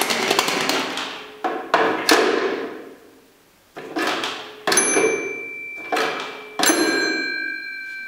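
Handset of a 1975 RWT rotary dial telephone being handled and knocked about, its loose microphone and speaker rattling inside. From about halfway it is set down on the cradle with several knocks, and the last two leave a lingering metallic bell-like ring.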